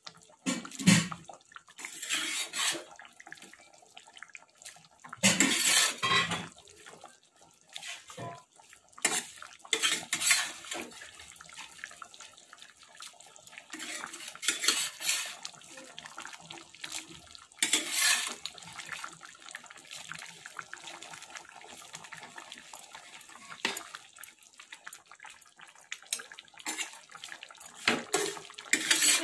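Prawn curry bubbling in a kadai as it simmers: a faint steady crackle of popping bubbles, with louder hissing spurts every few seconds.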